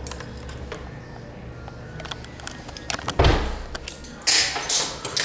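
Footsteps and camera-handling noise while going down a staircase: a faint low hum, then a heavy thump about three seconds in and a short rustling hiss about a second later.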